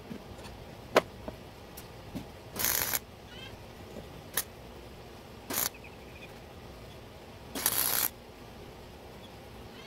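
Electric arc welding on steel tubing: three short bursts of arc crackle as tack welds are laid, the last about half a second long, with a couple of sharp clicks in between.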